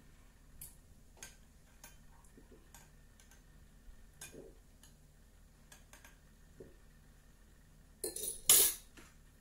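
A metal fork clinking lightly against a glass pickle jar and a ceramic saucer: a few soft, widely spaced clicks as pickles are lifted out and laid down. Near the end comes a louder rustling scrape lasting about a second.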